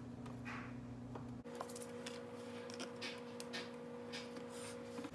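A butter knife spreading butter across slices of bread, a run of short, soft scraping strokes about one to two a second, over a steady low hum.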